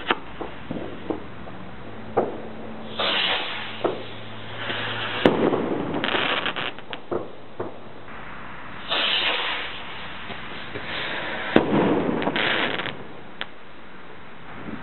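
New Year's fireworks: sharp bangs of bursting rockets and firecrackers, near and far, with several stretches of rushing, crackling hiss lasting a second or two.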